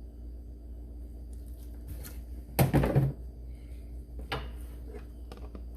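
Handling knocks and clunks as the last of the new engine oil goes in: one loud clunk about two and a half seconds in and a smaller knock past four seconds, over a steady low hum.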